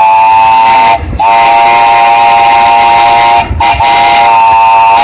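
Steam locomotive's chime whistle blown in three blasts, a loud chord of several close tones. A first blast ends about a second in, a long blast follows, and a third starts after a brief break about three and a half seconds in.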